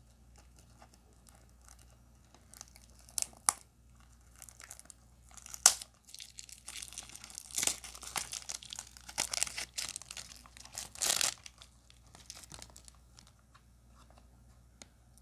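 Stiff plastic packaging crinkling and crackling as it is pulled and worked open, with a few sharp snaps in the first half and a longer, denser spell of crinkling in the middle.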